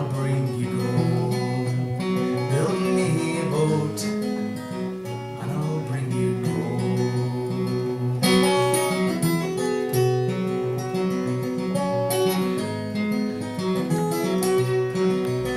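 Acoustic guitar playing the closing instrumental bars of a folk song, a steady picked and strummed chord pattern.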